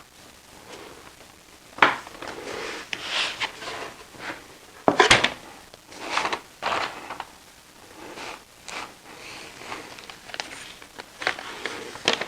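Workshop handling sounds: wooden workpieces knocked and slid about, with a sharp knock about two seconds in, a louder one about five seconds in, and scattered lighter clicks and scrapes.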